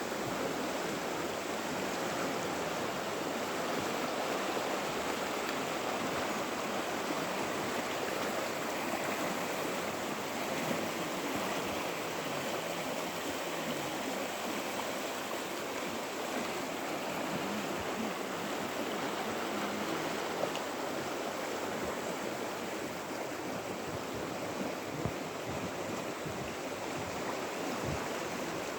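Swollen river in flood, fast-flowing water rushing with a steady, even noise. A few low thumps come near the end.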